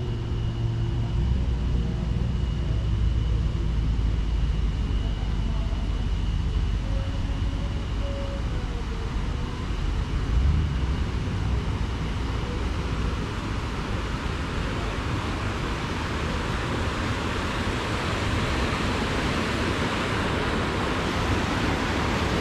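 Water rushing through a concrete outlet channel where the lake drains into a river: a steady hiss that grows louder over the second half as it is approached. Before that there is a low rumble and a faint steady high tone.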